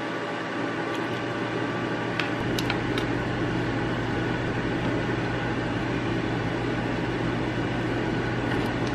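Air fryer running as it preheats: a steady fan whir with a low hum that strengthens about two seconds in. A few light clicks from metal tongs against a bowl come near the start.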